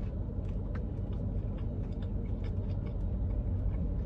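Car engine idling, a steady low rumble heard from inside the cabin, with faint scattered clicks of chewing.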